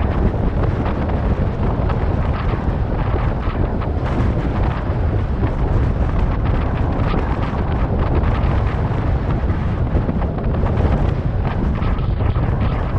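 Wind blowing hard across the microphone: a steady, deep rushing noise.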